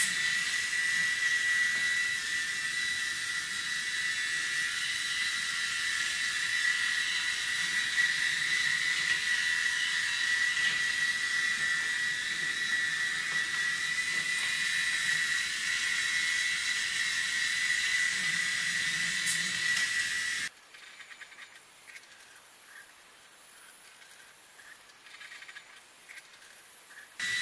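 A steady high-pitched whine over a hiss, typical of the small electric motor and gearbox of a battery-powered toy train running along wooden track. About 20 seconds in it cuts off abruptly, leaving only a much quieter hiss.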